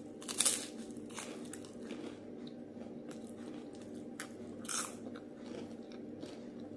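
Close-up eating sounds of a crispy piece topped with avocado. There is a loud crunch about half a second in as it is bitten, then chewing with smaller crunches, and another loud crunch near five seconds as more goes into the mouth. A steady low hum sits underneath.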